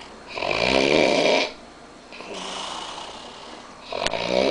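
A man snoring in his sleep: a loud snore on one breath, a quieter breath out, then another loud snore starting near the end.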